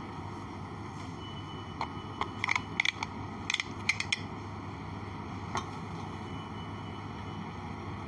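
Cranberry juice being handled and poured from a carton into a pan: a cluster of short clicks and taps between about two and four seconds in, and one more a little later, over a steady low hum.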